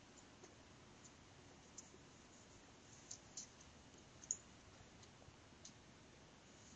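Near silence with a handful of faint, brief clicks, the loudest a little over four seconds in.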